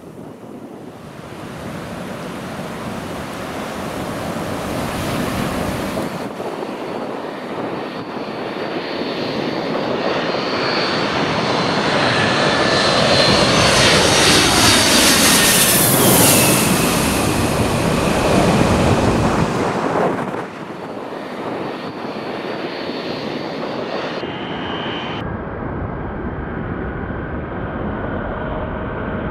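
Boeing 767-300 twin-jet airliner on final approach, its jet engine noise growing steadily louder as it comes in low and passes overhead about halfway through. As it goes by, the whining engine tones slide down in pitch. The sound cuts off abruptly about twenty seconds in, and a steadier jet engine sound follows.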